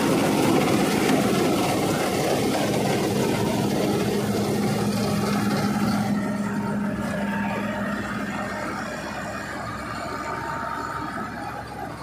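Malkit Champion track-type combine harvester running under load as it cuts and threshes paddy: steady machine noise with a low, even hum, getting gradually quieter over the second half as the machine moves away.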